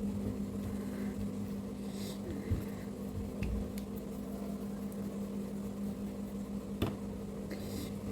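Steady low electrical hum of a running machine, such as a fan or kitchen appliance, holding one pitch throughout, with a few faint ticks over it.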